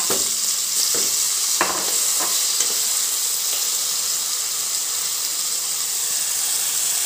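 Chopped button mushrooms sizzling in hot oil in a pan while a wooden spatula stirs them, with a few light scrapes in the first three seconds.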